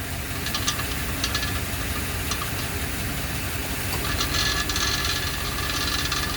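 Truck engine idling with a light metallic rattle from a loose oxygen sensor on the exhaust: scattered ticks at first, turning into a steady buzzing rattle from about four seconds in.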